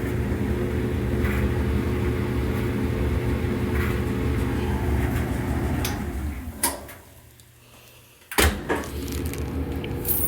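Whirlpool commercial dryer running after its idler tension pulley and belt were put back, with a steady motor hum and the drum turning. About six and a half seconds in it winds down with a click. Two seconds later a loud thump comes, and the steady running starts again.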